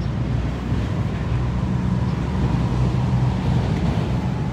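Steady low background rumble with no speech; the material does not show whether it comes from engines or traffic nearby or from wind on the microphone.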